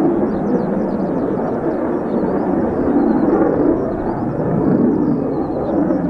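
Jet noise from an F-4EJ Kai Phantom II's twin J79 turbojets in flight: a steady rumbling roar that swells and eases slightly. Small birds chirp faintly above it.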